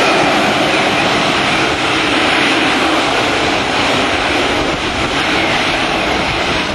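AV-8 Harrier's Rolls-Royce Pegasus turbofan running at high thrust as the jet hovers and comes down in a vertical landing: loud, steady jet noise with a faint whine above it, easing slightly toward the end.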